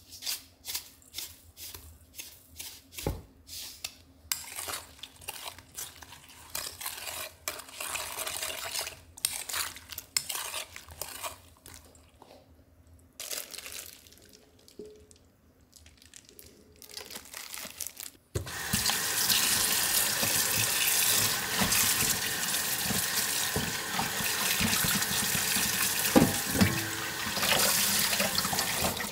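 Kitchen-tap water pouring into a stainless steel sink and splashing through a mesh strainer as aged kimchi is rinsed. The water starts suddenly about 18 seconds in and runs steadily. Before it come irregular clicks and rustles of food being handled in a steel bowl and taken from a plastic container.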